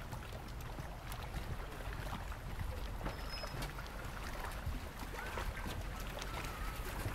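Wind buffeting the microphone with a steady low rumble, with light footsteps on wooden pier boards.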